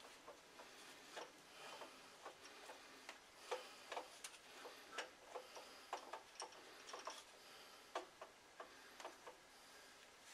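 Faint, irregular light clicks and taps of hands working grease onto the gear wheels inside a Shopsmith scroll saw's lower housing.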